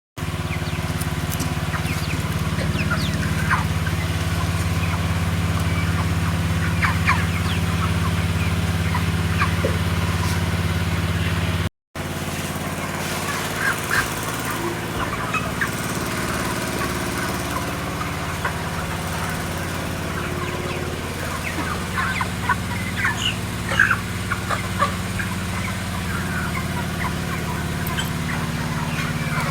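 Poultry clucking and calling in short scattered bursts over a steady low mechanical hum, with a brief dropout about twelve seconds in.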